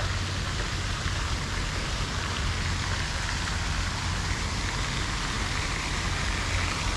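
Steady hiss like falling rain or running water, even throughout, over a low steady hum.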